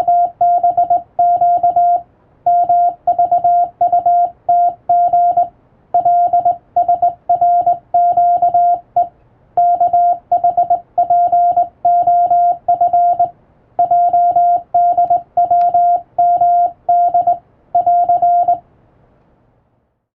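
International Morse code sent by hand on a telegraph key, heard as a steady beep keyed into dots and dashes. The letters come in groups with slightly longer pauses between words, and the sending stops a little before the end.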